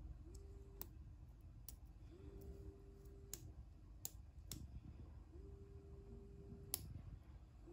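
A 42 mm 24 V BLDC motor gives a faint steady whine that rises briefly as it spins up. It runs three times for about half a second to a second and a half, and each run ends at a click. About six sharp clicks of small toggle switches are heard as the motor is started, stopped and switched in direction.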